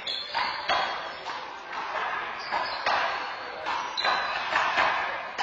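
Rubber handball being slapped by hand and smacking off the court wall during a doubles rally: about ten sharp, echoing smacks at an uneven pace.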